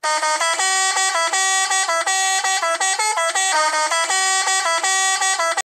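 Truck musical air horn (a 'telolet' horn) playing a repeating tune of short brassy notes that step up and down about four times a second. It cuts off suddenly near the end.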